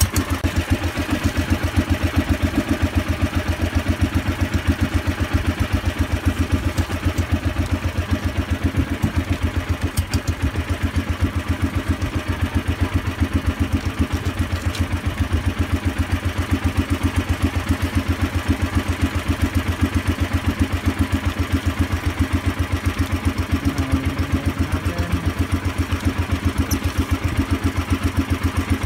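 A small fishing boat's engine running steadily, its firing pulses coming fast and even without any change in speed.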